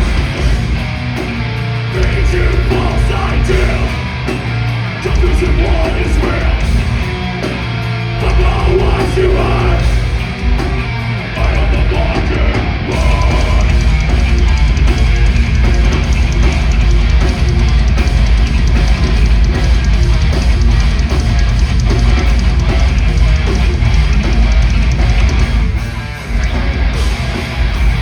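Heavy metal band playing live: distorted electric guitars over a heavy low end, loud and continuous, with a brief drop in level near the end.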